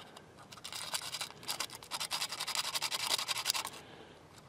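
Rapid scratchy rasping and clicking as an abrasive strip is rubbed between the distributor's ignition points, held open with a screwdriver, to clean points fouled by corrosion. It starts about half a second in and stops shortly before the end.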